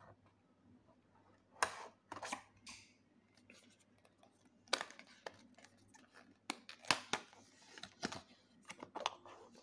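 Cardboard packaging being handled: a small white card box is lifted out of its card tray and opened. This gives a scatter of short scrapes and rustles of card rubbing on card, with quiet gaps between.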